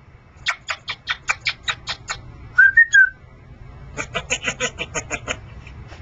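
Congo African grey parrot making a quick run of sharp clicks, then a short two-note whistle, then another, faster run of clicks.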